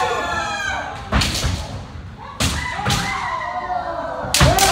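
Kendo sparring: long held kiai shouts from armoured players, with sharp cracks of bamboo shinai strikes and stamping feet on the wooden floor. Hard hits land about a second in, twice around two and a half to three seconds, and again near the end.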